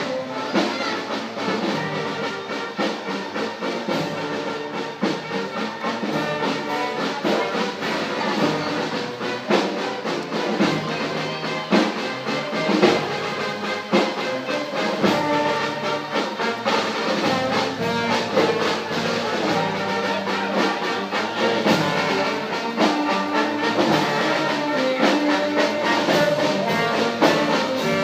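Brass band music playing steadily, with frequent sharp beats running through it.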